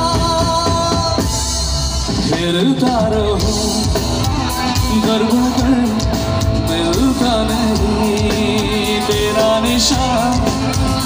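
Live band playing a song with a singer's voice over bass guitar, electric guitar and drums, amplified through the stage sound system.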